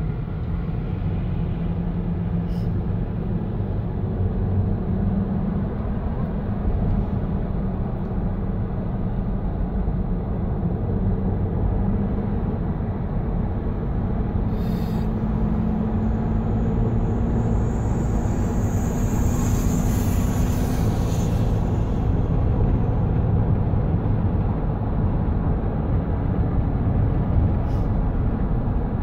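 Steady road noise inside a moving car's cabin at freeway speed: a low drone of engine and tyres. About two-thirds of the way through, a high hiss swells and fades over a few seconds.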